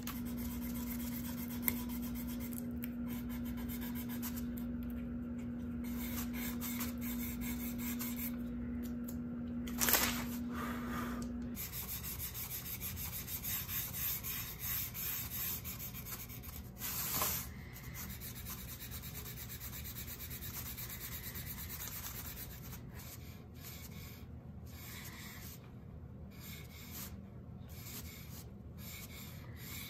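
Hands rubbing and scraping on a small glued-up wooden picture frame and the kraft paper under it, with two short knocks, about ten and seventeen seconds in. A steady hum runs under the first third and stops suddenly.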